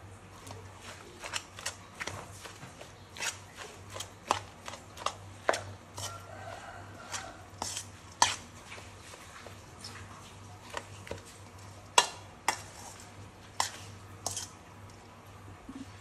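Metal spoon stirring a wet mix of raw small fish, mushrooms and herbs in a stainless steel bowl, knocking and scraping against the bowl in irregular sharp clinks. The loudest clinks come about eight and twelve seconds in.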